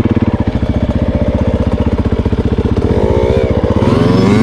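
Dirt bike engine running close by with a steady, fast pulse, while a second engine revs up and down near the end.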